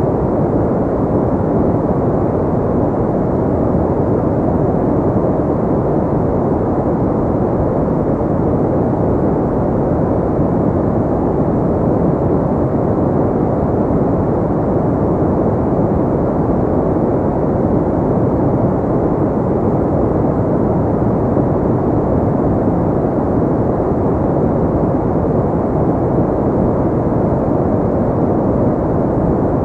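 Generated pink noise: a steady, unbroken rushing hiss weighted toward the low end, with little treble.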